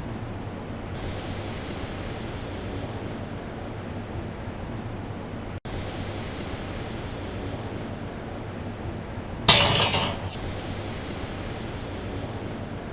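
Steady rushing railway-style background noise, broken about two-thirds of the way through by a loud, sharp metallic clatter of two or three quick strikes.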